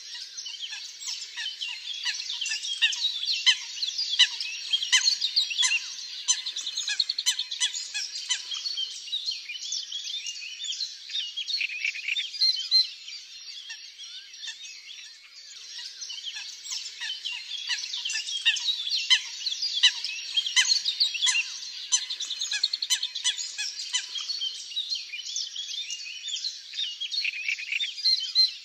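Dense chorus of small songbirds chirping and trilling, high-pitched and busy throughout. Halfway through it thins briefly, and the same run of chirps and trills then plays again.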